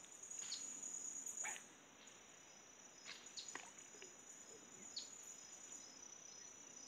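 Faint, steady high-pitched chorus of insects, with a few short chirps scattered through it.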